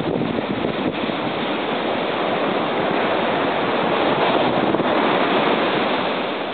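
Ocean surf breaking and washing up the beach, a steady rush that swells about four to five seconds in and eases off near the end.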